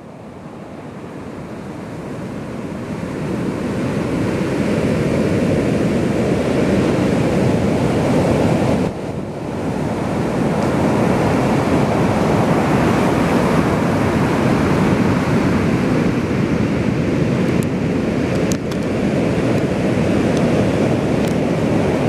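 Ocean surf breaking and washing up a sandy beach: a loud, steady rush of breaking waves that builds over the first few seconds, dips briefly about nine seconds in, then holds.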